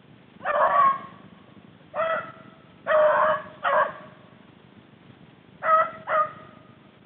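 Rabbit-hunting hounds barking in the woods: six short, ringing barks, each trailing off in a drawn-out note, spaced out in ones and twos. This is the voice that dogs give while running a rabbit's trail.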